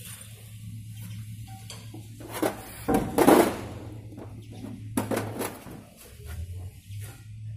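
Metal hydraulic pump parts clattering and clinking against a steel tray as they are handled, a few short bursts with the loudest about three seconds in. A steady low hum runs underneath.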